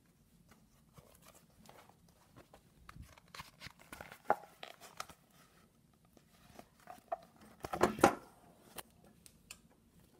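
Handling noise from a hand-held phone: scattered rubbing, scraping and clicking, with a louder knock about four seconds in and a louder cluster of bumps near eight seconds.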